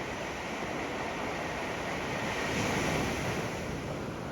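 Ocean waves washing up on a sandy shore, a steady hiss of surf that swells to a peak about three seconds in and then eases off.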